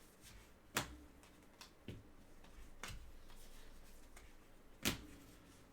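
Trading cards being handled and set down on a table: a few sharp clicks and taps, the two loudest about a second in and near the end, with fainter ones between.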